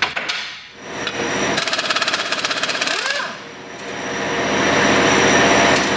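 Air impact wrench hammering a bolt into a cast engine block, driving it tight to try to snap it. It runs in two bursts: a fast rattle for about two seconds, a short pause, then a louder, steadier run near the end.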